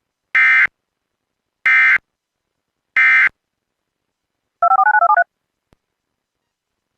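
Emergency Alert System end-of-message signal: three identical short bursts of warbling digital data tones, each about a third of a second and spaced about a second and a quarter apart, followed about a second and a half later by a quick string of about seven touch-tone (DTMF) beeps.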